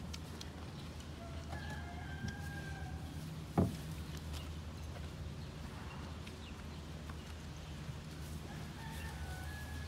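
A rooster crowing twice in the background, one long call early on and another near the end. About three and a half seconds in, a single sharp knock is the loudest sound, over a steady low hum.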